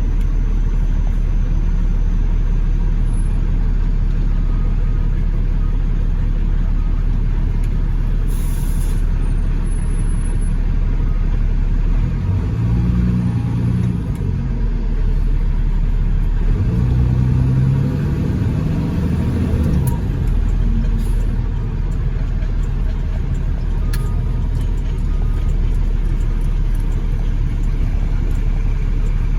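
A motor vehicle's engine running with a steady low rumble. Its pitch rises twice, around twelve seconds in and again from about sixteen to twenty seconds.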